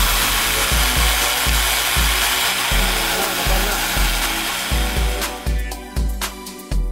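Small 12-volt air compressor, converted to a vacuum pump, running with a loud, steady whirring hiss over background music with a steady beat. The pump noise stops about five seconds in, leaving only the music.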